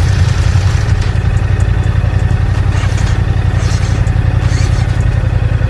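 Parallel-twin motorcycle engine idling with a steady, even low pulse.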